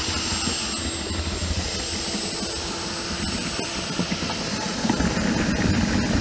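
Power drill running steadily, turning a long auger bit that bores through the soil under a concrete sidewalk, with a thin high motor whine over the churning noise.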